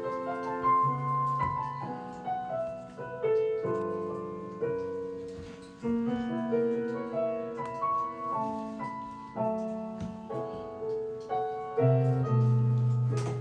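Solo piano music: a flowing melody of single notes over low held bass notes.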